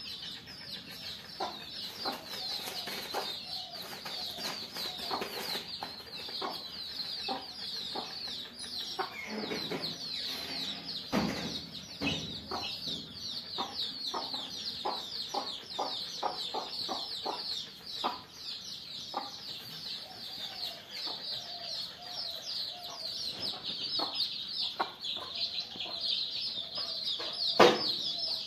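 Hen and her chicks: the chicks peep constantly in quick, high, falling cheeps, while the hen clucks low now and then. A sharp knock sounds near the end.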